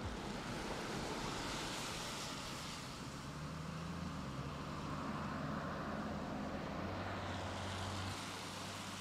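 Cars passing on a wet road: tyre hiss on the wet pavement swells as vehicles go by, about two seconds in and again near the end, over a low engine hum.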